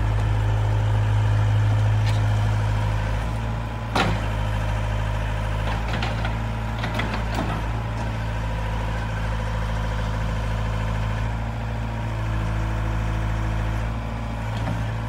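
Doosan DH60-7 mini excavator's diesel engine running steadily while the hydraulics work the boom. There is a sharp metallic knock about four seconds in and a few clanks a couple of seconds later.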